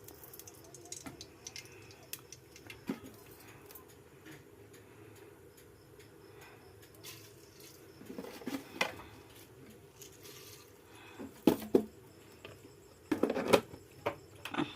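Kitchen utensils and dishes being handled: scattered clinks and knocks. They come thicker in the second half, with the loudest cluster near the end.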